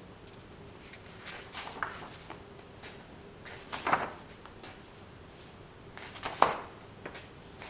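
Paper pages of a thick paperback book being turned by hand: a few quick papery swishes, the two loudest near the middle and about two-thirds of the way through, with lighter rustles of the pages between them.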